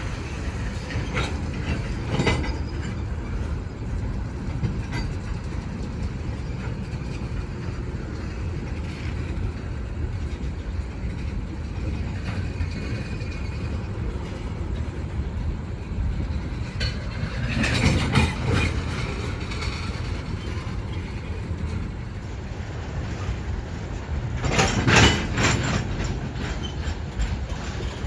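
Freight train of ethanol tank cars rolling past at low speed: a steady rumble of wheels on rail, with bursts of clickety-clack clatter as wheel sets cross joints, loudest about 18 s and 25 s in.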